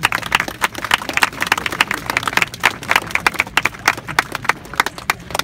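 Crowd applauding: many hands clapping in quick, irregular claps.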